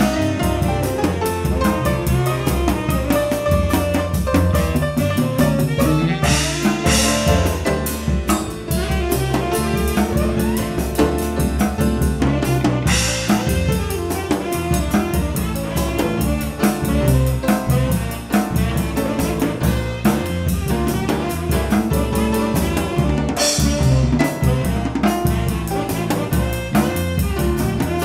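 Live jazz-funk band playing: saxophone leading over drum kit, bass and piano, with a few cymbal crashes.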